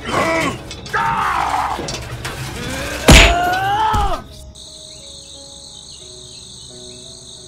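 Cartoon-style vocal effects and a loud thump about three seconds in, as a small plastic toy tractor is set back onto its wheels. From about four seconds in there is soft background music with a steady high chirring.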